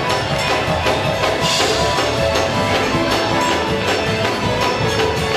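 Up-tempo music with a steady, driving percussion beat.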